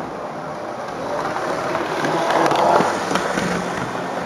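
Model train running on its track: a rolling rumble with scattered wheel clicks that swells to its loudest about two and a half seconds in, then eases off.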